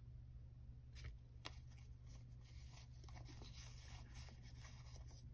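Faint rustling and light tapping of clear plastic sticker sheets and paper cards being shuffled and fanned out by hand, with a couple of small taps about a second in.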